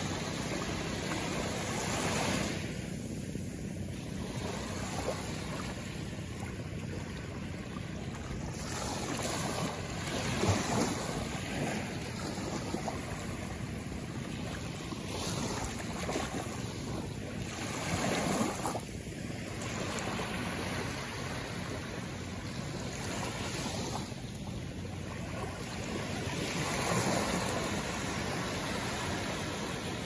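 Small sea waves breaking and washing up the shore, a steady surf rush that swells into louder surges every several seconds as each wave comes in.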